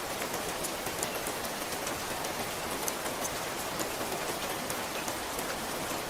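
Steady rain, with a dense patter of individual drops ticking over the even hiss.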